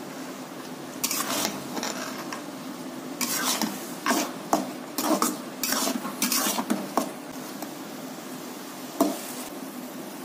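Metal spatula stirring and scraping thick, nearly done suji halwa (semolina pudding) around an aluminium kadhai in irregular strokes, over a light sizzle of the oil in the pan. There is one sharp knock of the spatula near nine seconds in.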